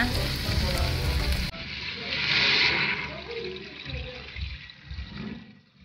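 Pork pieces sizzling as they fry in a pot. After a cut, water is poured into the hot pot, with a burst of hissing about two seconds in that fades away.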